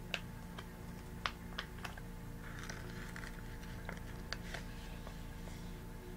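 Plastic pouch of an individually wrapped pickle being handled and opened: scattered sharp crackles of the plastic, with a brief soft rustle about two and a half seconds in.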